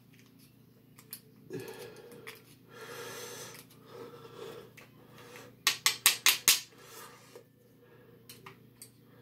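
Small metal parts of a nitro RC engine being handled and worked apart by hand, with soft rubbing and a quick run of about six sharp metallic clicks a little past halfway.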